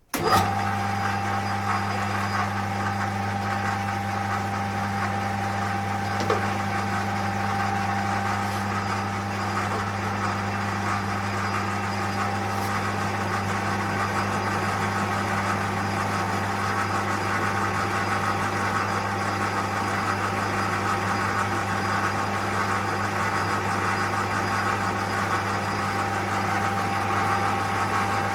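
Colchester Master lathe running at a steady speed: a constant low hum with a higher steady tone over it, starting suddenly with a click.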